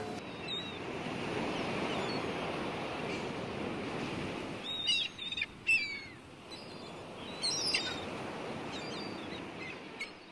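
Sea surf washing steadily, with short bird calls over it, a cluster about halfway through and a few more near the end.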